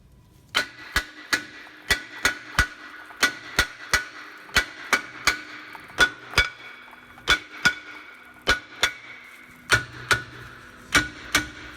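Hammer beating on a rusted-on brake rotor to knock it free of the hub, about two dozen sharp strikes at an uneven pace of roughly two a second. Each strike leaves the cast-iron rotor ringing with a bell-like metallic tone.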